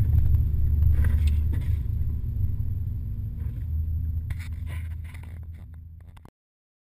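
Toyota Land Cruiser driving on a rough dirt track, heard from inside the cab: a low engine and road rumble with scattered knocks and rattles. It fades out and cuts off about six seconds in.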